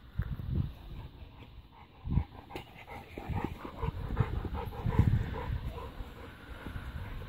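Bullmastiff panting in short, quick breaths close by, with a few low thuds.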